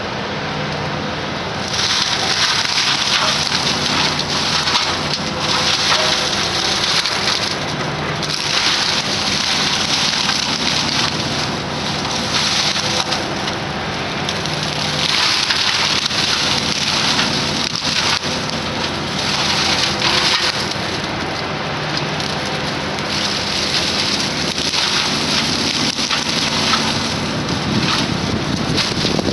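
Excavator-mounted mulching mower head grinding and splintering brush and small trees, over the steady drone of the excavator's diesel engine. The shredding comes in repeated surges of a second or two as the head bites into the vegetation.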